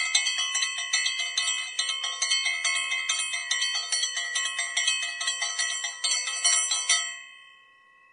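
Bells ringing in quick, even repeated strokes, several clear tones sounding together; the ringing stops about seven seconds in and dies away.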